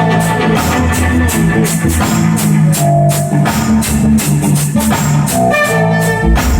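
Loud recorded music played over a party sound system: a steady drum beat over heavy bass notes.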